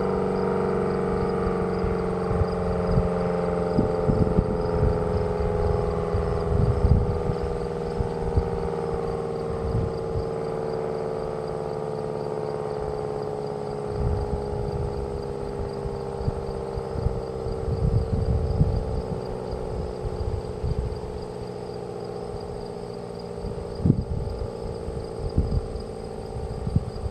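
Federal Signal Model 5AT warning siren winding down after its blast: a steady tone that slides slowly lower in pitch, with irregular low rumbles underneath.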